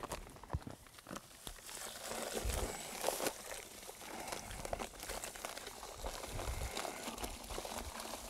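Paper bag of dry mortar mix crinkling and rustling as it is handled and tipped, with the powder pouring out into a plastic pail in irregular crackles.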